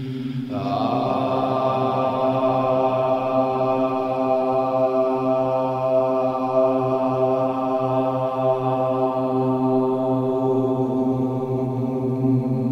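Meditation background music: a long-held chanted drone on one steady pitch. Brighter overtones come in about half a second in.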